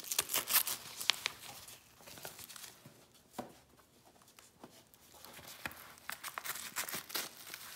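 Topo Athletic trail gaiter being handled and hooked onto a shoe's laces. Scratchy rustling of the fabric with light clicks comes in a cluster at the start, eases off in the middle, and picks up again near the end.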